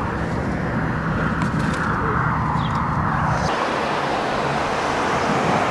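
Steady road and engine noise inside a moving car's cabin, a low rumble under a rushing hiss. About three and a half seconds in it changes abruptly to a lighter steady rushing noise with much less rumble.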